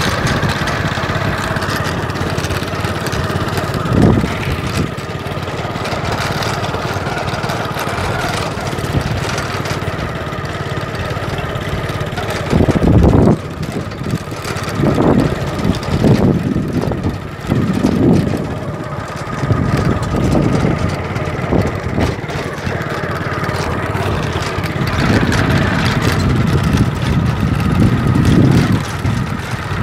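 An engine running steadily, with irregular thumps and rubbing from the phone being handled and jostled.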